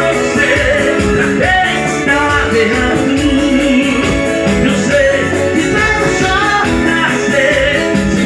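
Live band music: electric guitar and keyboard over a steady drum beat.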